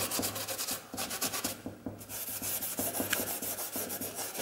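Grey 1500-grit abrasive fleece pad scrubbed by hand in quick back-and-forth strokes over a vintage Vespa's wet original paint, lifting surface rust and oxidation. The rubbing stops briefly a little before halfway, then goes on.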